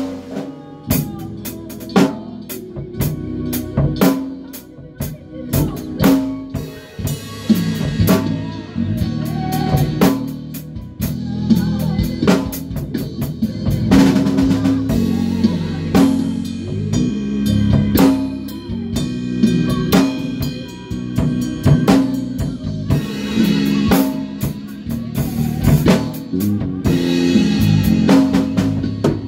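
A band playing live: a drum kit with snare and kick drum hits, over a bass guitar line and other instruments.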